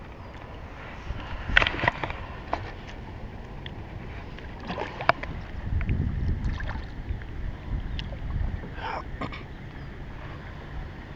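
Water sloshing against a dock with wind rumbling on the microphone, broken by a few sharp knocks and splashes, the loudest about a second and a half in, as a northern pike is dropped back into the water.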